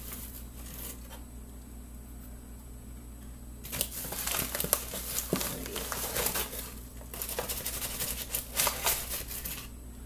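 Bag of masa flour crinkling and rustling as a hand digs into it and scoops flour out with a measuring cup. A short bout at the start, a quieter pause, then busier crinkling through the second half.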